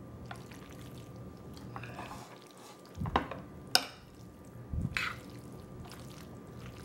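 Metal serving spoon stirring sauced bow-tie pasta in a glass baking dish: soft wet squishing, with a few sharp clinks of the spoon against the glass, two about half a second apart around three seconds in and a heavier knock near five seconds.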